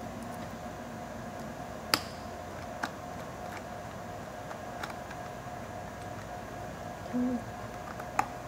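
A few sparse, sharp clicks and taps of a small screw and metal parts being handled against the broadband-card bracket and chassis of an opened Panasonic Toughbook CF-29 laptop, the loudest about two seconds in. A steady faint hum runs underneath.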